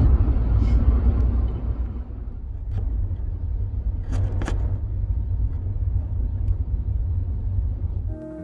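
Steady low road rumble inside a moving car's cabin, with a couple of faint clicks about halfway through. It cuts off suddenly near the end.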